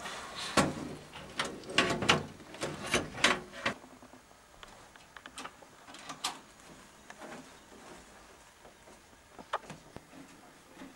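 Hard drive being slid into a computer case's drive bay and seated. There is a quick run of clicks, scrapes and knocks over the first few seconds, then only a few scattered faint ticks.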